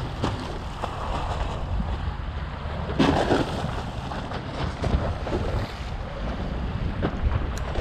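Wind buffeting the microphone over small waves slapping against a concrete seawall, with a few brief sharp sounds, the loudest about three seconds in.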